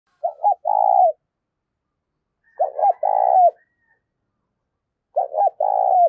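Spotted dove cooing: three phrases about two and a half seconds apart, each two short notes followed by a longer drawn-out note.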